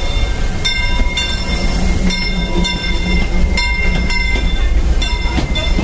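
Disneyland Railroad steam train moving through the station: a steady low rumble from the locomotive and its passenger cars, with metallic ringing struck again and again, about once or twice a second.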